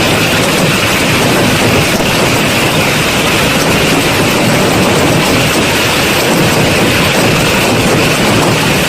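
Heavy hail pelting down: a loud, steady, dense hiss of countless small impacts.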